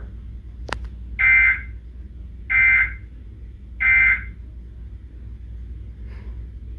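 Three short bursts of Emergency Alert System SAME digital data tones, evenly spaced about a second and a quarter apart: the end-of-message signal that closes the alert. A click comes just before the first burst, over a faint steady low hum.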